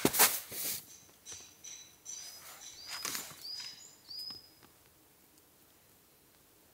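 A small bird gives a quick series of about four short, high chirps, each sweeping up and then holding briefly. Brief loud rustling noises come right at the start.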